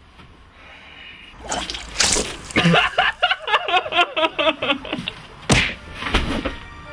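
A man laughing hard in a fast run of repeated 'ha' sounds, set between sharp blows, one about two seconds in and one near the end.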